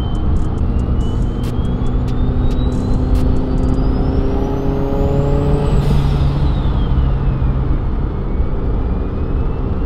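Mitsubishi Evo X turbocharged four-cylinder accelerating, heard inside the cabin. Its Precision 6266 turbo, fitted with a T51R-mod compressor housing, whines loudly, climbing steadily in pitch for about six seconds. The whine then falls away as the engine note drops, and rises briefly again near the end.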